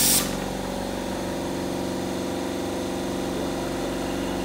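A burst of compressed-air hiss from the mixer's pneumatic lift cuts off just after the start. What remains is a steady, even machine hum.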